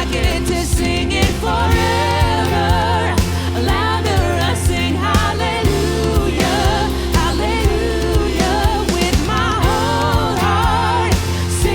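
Contemporary worship band music: a singer's held, wavering vocal lines over sustained bass chords and a steady drum beat.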